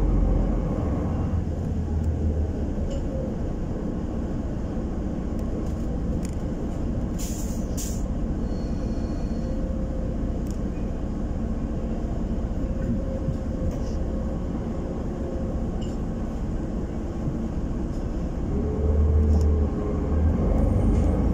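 Solaris Urbino 12 city bus heard from inside the cabin while driving: steady engine and road rumble with a faint whine that rises and falls. Two short hisses come about seven seconds in, and the low rumble swells near the end.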